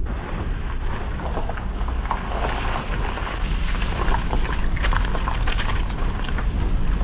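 Car tyres rolling slowly over a loose gravel and rock-strewn dirt road, with a steady low rumble and many small clicks and crackles of stones under the tyres.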